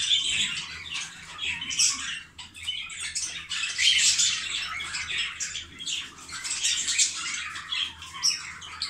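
A room of caged budgerigars chattering and squawking without pause, many birds calling over one another.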